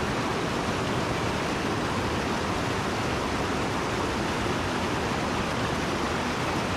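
Rushing white water of a mountain stream pouring over rocks in rapids: a steady, even rush.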